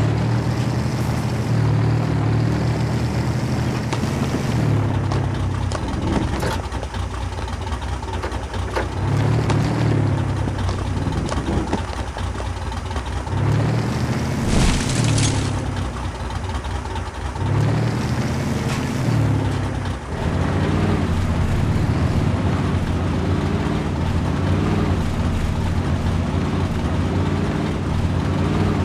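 Electric motor and gears of an RC rock crawler whining, rising and falling in pitch with repeated bursts of throttle as it works through a clay trench. A short hissing scrape about halfway through.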